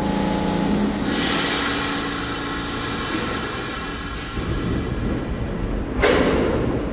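R46 subway train starting to pull out of a station: a steady low hum that stops about a second in, then a hiss of air, then a low rumble rising as the cars begin to roll about four seconds in, with a short loud burst of noise about six seconds in.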